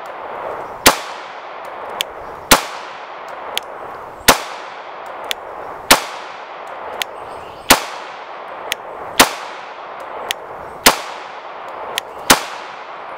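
Walther PPS 9mm pistol firing eight single shots of 115-grain FMJ at a slow, steady pace, about one every one and a half to two seconds, each crack followed by a short echo. A fainter sharp click falls between most of the shots.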